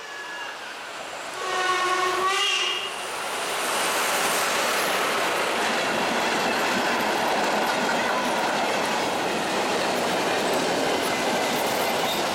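A steam locomotive gives one whistle, a little over a second long, about one and a half seconds in. Then its train of old passenger coaches rolls past close by, with steady wheel-on-rail noise and some clickety-clack.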